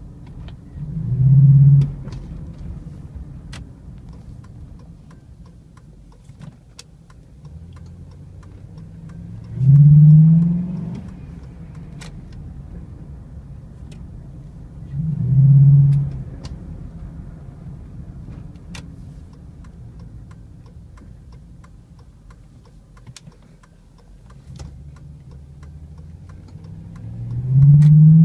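Chevy 5.3L V8 with a cold air intake, heard from inside the cab while driving: four bursts of hard throttle, each about a second long with the engine note rising, and a low steady engine rumble between them.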